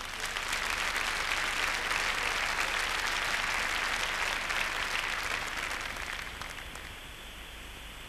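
Audience applauding, a dense patter of many hands that dies away about six to seven seconds in.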